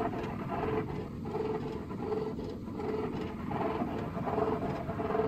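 The electric motor and flywheel-driven alternator of a large flywheel generator rig running steadily. It is a machine hum that swells and fades in a regular beat, a little more than once a second.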